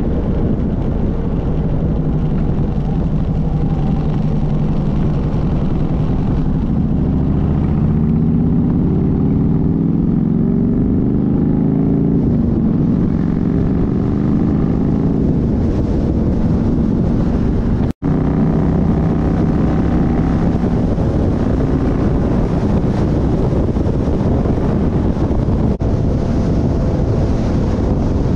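Harley-Davidson Ultra's V-twin engine running at highway speed under wind rush. The engine pitch climbs over the first dozen seconds as the bike speeds up, then holds steady, with one sudden split-second dropout about two-thirds of the way through.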